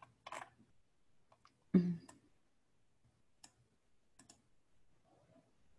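Faint, scattered clicks of a computer mouse and keyboard in use, with one short, louder sound about two seconds in.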